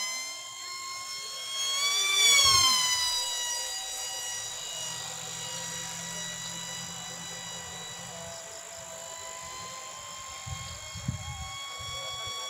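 Electric motor and propeller of a homemade high-speed RC flying wing, whining in flight. The whine rises in pitch, is loudest about two seconds in, then drops in pitch as the plane passes and goes away. After that it carries on steadier and a little quieter, creeping up in pitch again near the end.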